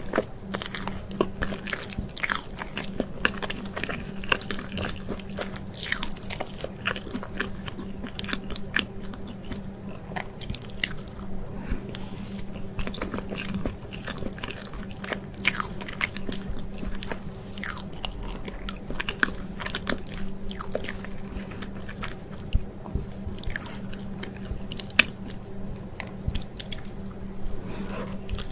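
Close-miked eating of chocolate cake: biting and chewing, with many short crisp crunches and clicks scattered throughout.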